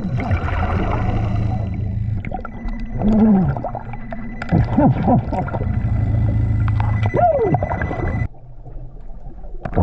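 Underwater sound of a scuba diver breathing through a BLU3 regulator: a steady low hum and gurgling bubble noise, with a few rising-and-falling moans. The sound drops suddenly to a quieter murmur about eight seconds in.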